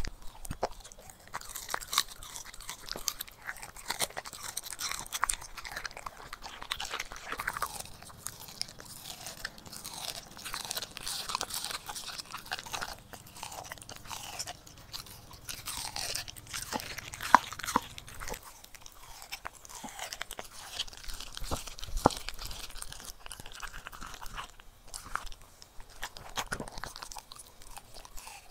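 A corgi crunching and chewing pieces of its raw-food meal: a steady run of irregular crunches, with one especially loud crunch a little past halfway.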